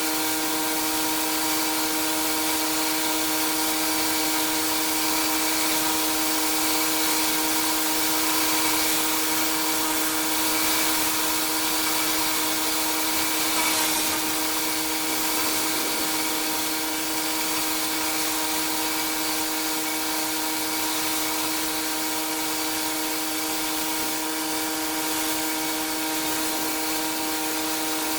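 Pressure washer running steadily: a constant machine hum under the hiss of the high-pressure water spray.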